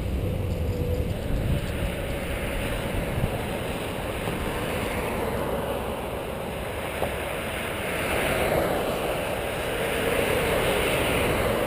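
Wind rushing over the microphone of a camera on a moving bicycle, with road traffic underneath. It swells a little twice in the second half.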